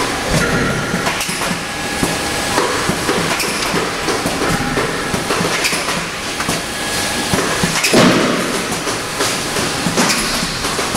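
Packing-line machinery running: plastic modular conveyor belts clattering, with repeated clicks and knocks from a tray denester and soaker-pad pick-and-place machine placing trays on the belt. A louder knock comes about eight seconds in.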